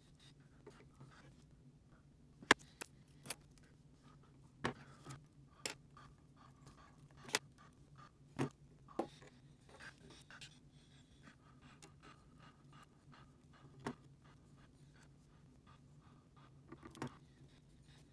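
Irregular small clicks, taps and light scrapes of fingers pressing and smoothing clear adhesive tape onto a graphics card's circuit board, the sharpest tap about two and a half seconds in, over a faint steady hum.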